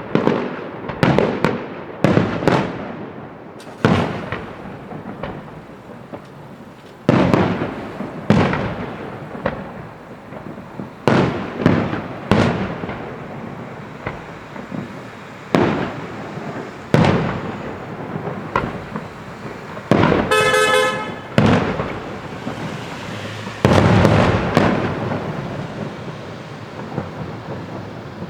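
Aerial fireworks bursting one after another, a sharp bang every second or two, each followed by a rumbling echo that dies away. A short, buzzing, pitched tone sounds about two thirds of the way through.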